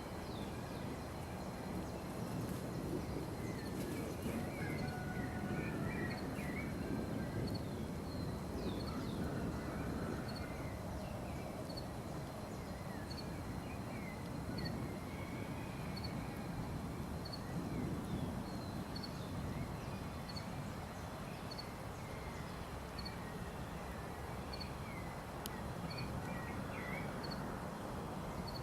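Birds chirping over a steady low outdoor rumble, with a short high chirp repeating about every second and a half. No thunder stands out.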